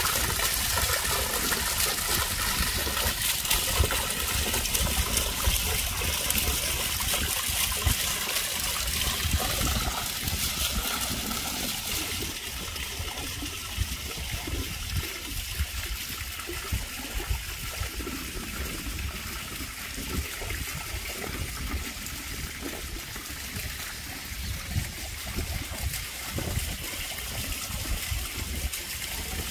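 Fountain water trickling and splashing steadily, a little softer from about ten seconds in.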